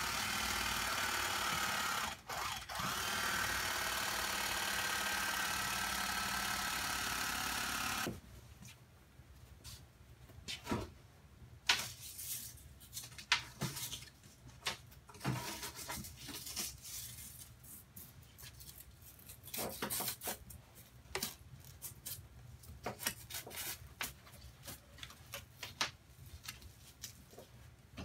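Corded electric knife running steadily as it cuts through a thick block of upholstery foam, with a brief stop about two seconds in, then cutting off at about eight seconds. After that come scattered soft knocks and clicks of the foam being bent and handled.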